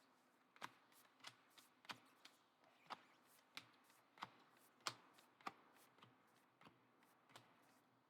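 Faint, uneven light clicks and taps, about one or two a second: trading cards being handled and sorted.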